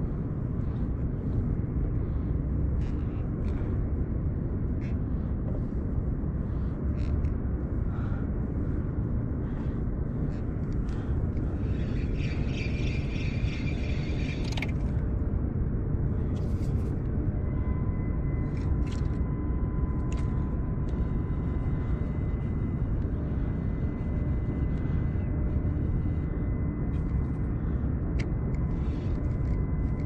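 Steady low wind rumble on the camera's microphone, with scattered light clicks and knocks from handling the rod and reel. A faint steady high tone comes in a little past the middle.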